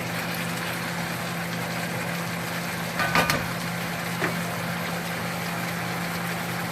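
Pork, peppers and onions sizzling in a frying pan over high heat, with a steady low hum underneath. A short clatter about three seconds in and a small click a second later.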